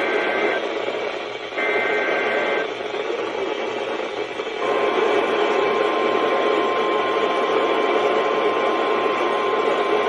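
NOAA Weather Radio EAS alert over radio hiss. A warbling SAME data burst ends just after the start and another sounds about two seconds in. At about four and a half seconds the steady 1050 Hz warning alarm tone begins and holds, signalling a warning broadcast to come.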